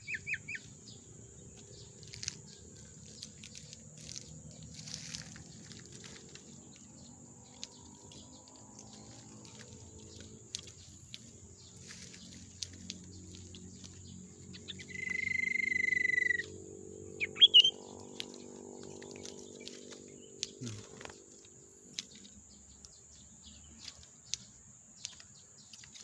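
Common iora calls: one long, steady whistle a little past the middle, followed about a second later by a short chirp. Scattered faint clicks and a faint low hum lie underneath.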